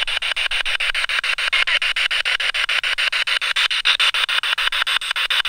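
Handheld spirit box radio sweeping rapidly through the stations: a loud hiss of static chopped evenly into short pieces, about ten a second.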